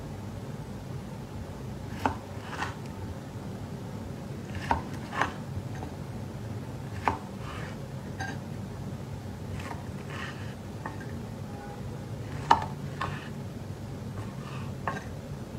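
A knife slicing through a seared steak on a cutting board. About ten short, sharp knocks come at uneven intervals as the blade reaches the board, the loudest one late on, over a steady low hum.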